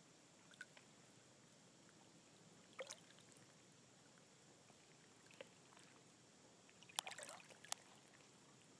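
Quiet lake water lapping and sploshing softly against a rocky shore: a few faint splashes spaced seconds apart, with a short cluster of slightly louder sploshes about seven seconds in, over a low hiss.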